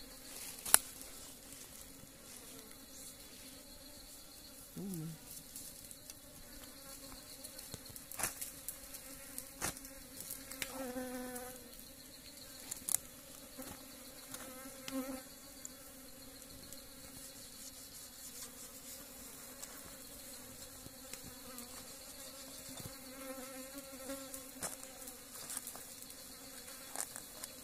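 Steady high insect buzzing from the forest throughout, with a few scattered sharp knocks of a machete chopping into meat; the loudest knock comes about a second in.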